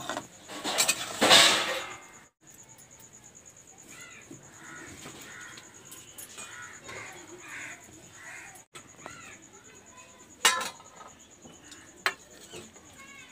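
A steel spatula scraping and splashing in a wok of boiled potatoes and chickpeas in water, loud for about a second near the start, then crows cawing repeatedly, and two sharp metal clinks on a steel plate near the end.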